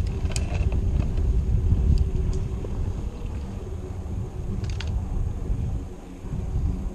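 Low rumble of wind buffeting the microphone while riding a bicycle, with a few light clicks.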